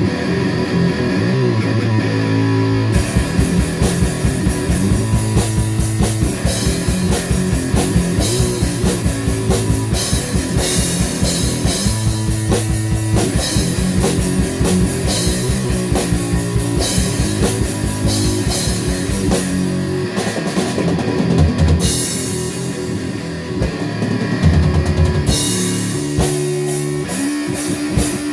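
Rock song played by a band with electric guitar and drum kit, a fast, even kick-drum beat driving it from about three seconds in until about twenty seconds in.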